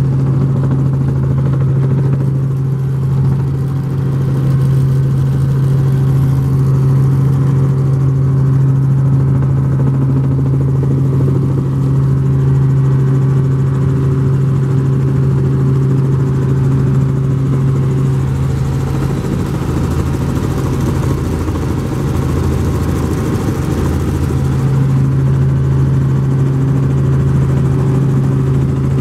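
Helicopter in flight, heard from inside the cabin: a loud, steady engine and rotor drone with a strong low hum that does not change.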